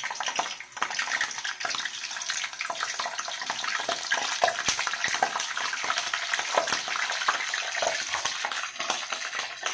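One-day-old chicks deep-frying in hot oil in a pan, a steady sizzle with many small crackles and pops.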